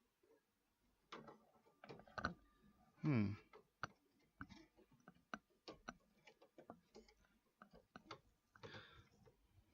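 Scattered light clicks and knocks of computer parts being handled while fitting a water-cooler radiator into a PC case, with a brief vocal sound about three seconds in.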